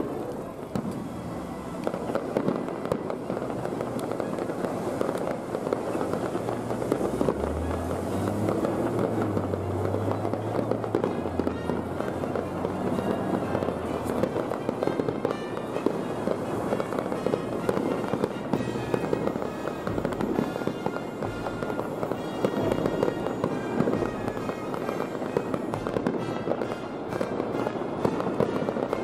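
Fireworks display: a dense, continuous run of shell bursts and crackling pops, with music playing alongside.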